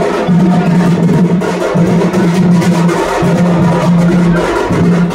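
Music with drums and wood-block-like percussion over a low note held in repeating phrases about every second and a half.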